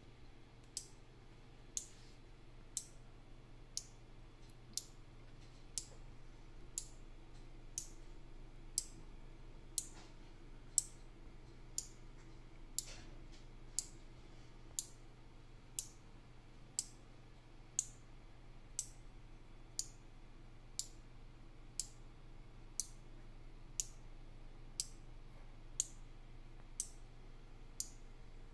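Electromechanical relays on four-channel relay modules clicking as they switch, one sharp click about every second, as the microcontroller steps through a timed sequence.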